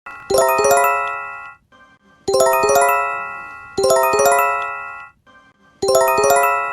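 Japanese emergency alert chime: a quick run of four ringing bell-like notes, repeated four times, each run fading before the next.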